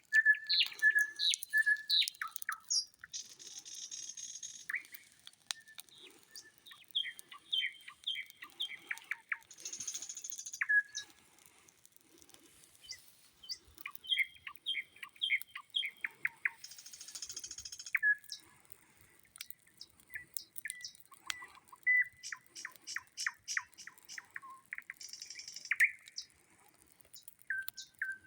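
Nightingale singing loudly: a varied song of phrases made of rapidly repeated sharp notes, buzzy rattles and clear whistles, separated by short pauses.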